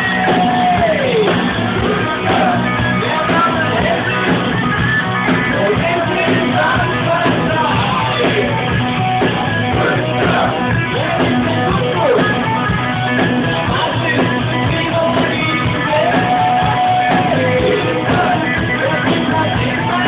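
Rock music led by guitar, with some singing or shouted vocals and sliding notes in places.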